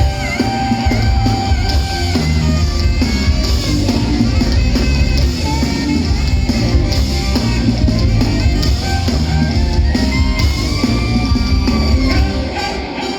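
Rock band playing, with guitar and drum kit, loud and steady, dipping briefly near the end.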